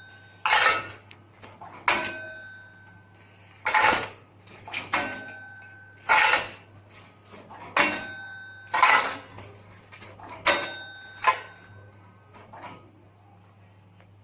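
Small semi-automatic pouch packing machine cycling about four times, roughly every three seconds: a sharp clatter as the hand-fed pieces drop in and the bag is sealed, then a short steady motor whine as the film is drawn for the next bag. It falls silent apart from a low hum near the end.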